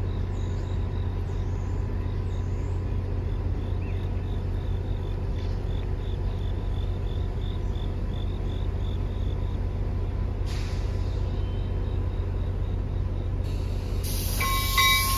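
NJ Transit diesel train idling at the platform, a steady low hum. Near the end a hiss of air, as the brakes release, and a few short high tones.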